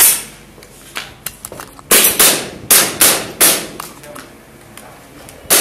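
Airsoft guns firing single shots: about eight sharp pops at uneven intervals, most in a quick run between about two and three and a half seconds in. Each pop rings on briefly in a large hard-walled room.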